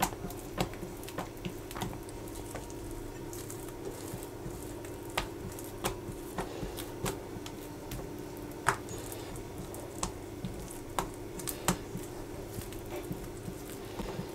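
Hands rolling soft, buttered yeast dough into ropes on a silicone baking mat: quiet squishes with irregular small taps and clicks as the dough and fingers meet the mat, over a steady low hum.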